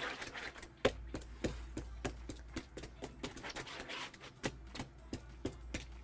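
Foley being performed for a running chase scene: a quick, irregular series of sharp taps and clicks, like footsteps and scuffs, over a faint low hum.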